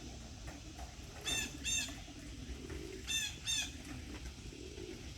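Blue jay squawking: two pairs of short, harsh calls, the second pair about two seconds after the first.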